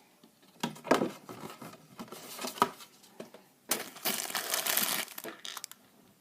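Crinkly packaging rustling and crumpling as small items are handled, with a few sharp clicks. About four seconds in comes a longer, louder stretch of crinkling lasting over a second.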